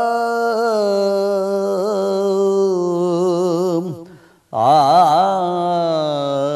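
A man singing a manqabat (devotional poem) unaccompanied, drawing out long held notes. His voice fades out a little after four seconds in, breaks off briefly for a breath, then starts a new phrase with a wavering, ornamented pitch.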